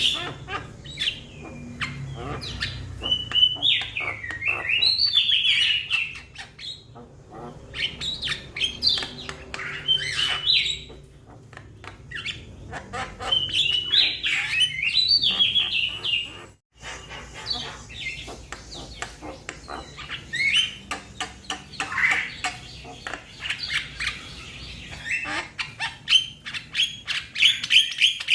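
Young Javan mynas calling: bouts of harsh, quickly bending whistles and squawks mixed with rapid clicking notes, separated by short pauses, with a brief break in the sound a little past halfway.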